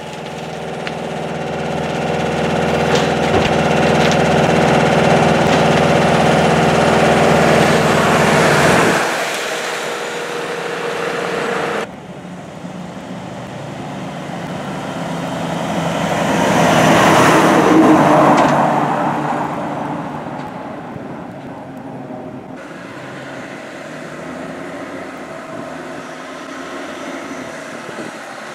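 Fire truck diesel engines on the road. One engine runs loud and steady, building over the first few seconds, then fades out about nine seconds in. After a sudden cut, another vehicle swells up and passes, loudest near the middle. After a second cut, a quieter steady engine and road sound follows.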